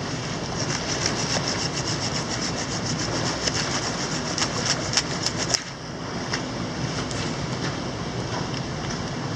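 Mountain stream rushing steadily. Over it come many quick, sharp clicks and rustles for the first five seconds or so, which stop suddenly about five and a half seconds in.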